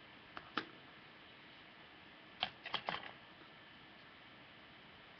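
Small plastic clicks and taps from handling a handheld laser pointer: two about half a second in, then a quick run of four or five about two and a half seconds in, over a faint hiss.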